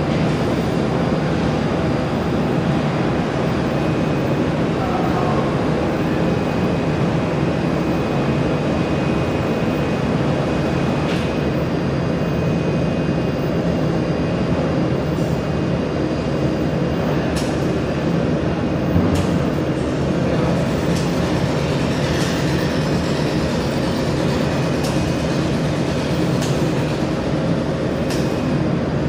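Jewelry laser welding machine running with a loud, steady rushing hum, with a few faint, sharp ticks scattered through the second half as the operator works a piece in the chamber.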